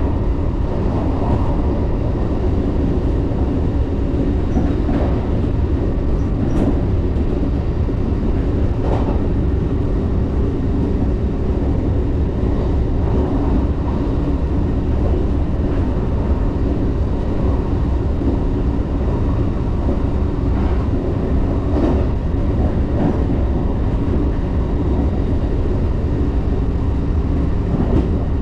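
Interior running noise of a 381 series electric train at speed, heard from near a door: a steady, loud rumble of wheels on rail and running gear, with a few faint clicks along the way.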